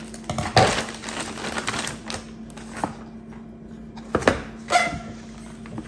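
Amazon delivery package being opened by hand: scattered rustles, clicks and knocks of packaging being handled and torn, with the sharpest knocks about half a second in and around four seconds in.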